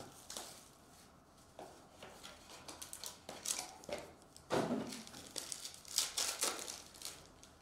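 Cellophane wrap crinkling as it is pulled off a box of trading cards, then a foil Contenders Optic football card pack crackling and tearing as it is ripped open by hand, in uneven bursts.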